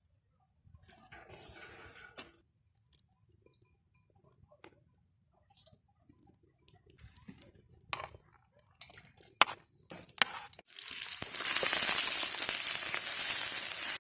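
Scattered small clicks and knocks, then a loud, steady sizzle of food hitting hot olive oil in a pan that starts near the end and cuts off abruptly.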